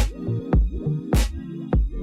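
Background electronic music with a steady drum beat and sustained bass and synth notes.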